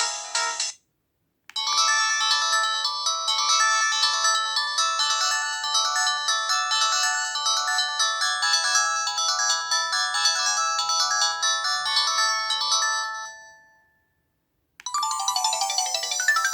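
Polyphonic synthesized ringtones from a Samsung SPH-A790 phone's Yamaha SMAF sound chip. The end of one tune stops just under a second in. After a short pause a busy multi-note melody plays for about twelve seconds and fades out, and a new ringtone begins near the end.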